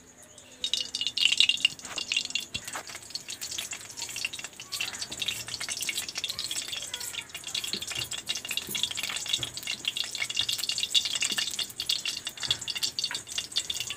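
Mustard oil sizzling and crackling in a hot metal kadhai, a dense patter of small pops that starts about half a second in, just after the oil is poured into the hot pan.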